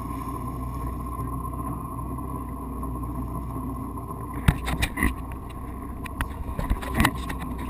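Motorboat engine running steadily as a low hum with a thin steady whine. From a little past halfway, a hand handling the camera makes a run of sharp knocks and bumps.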